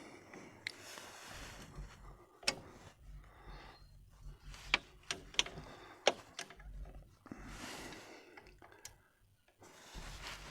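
A small stubby spanner clicking and tapping against the brake-pipe union nut and metal of a tractor's brake slave cylinder as the nut is worked loose, with quieter scuffing in between. The sharp metallic clicks come irregularly, a handful over several seconds.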